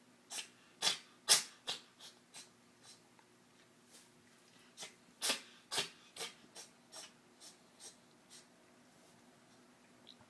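A cat sneezing over and over in two quick runs of short, sharp sneezes, about two a second. The loudest come near the start and about five seconds in, and each run tapers off. These are the last sneezes of a sneezing fit.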